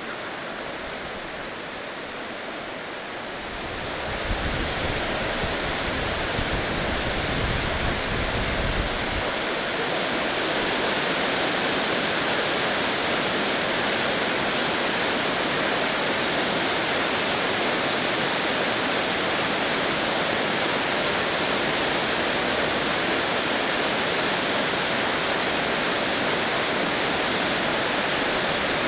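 Rushing water of a waterfall, a steady dense hiss of noise that fades in and grows louder about four seconds in, with a low rumble for a few seconds after that.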